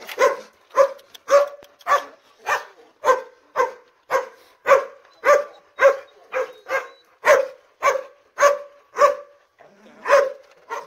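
A dog barking over and over at a steady pace, about two barks a second, with a brief pause near the end.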